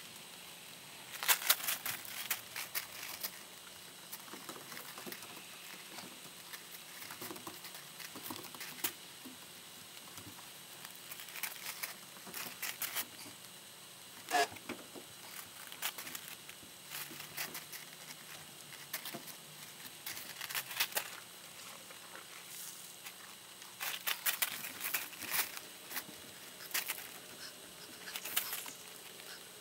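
Faint, irregular clicks and rustling in scattered clusters, with a few louder bursts of clicking.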